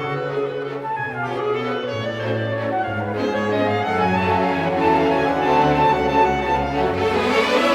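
Orchestral background music with bowed strings playing held notes at a steady level.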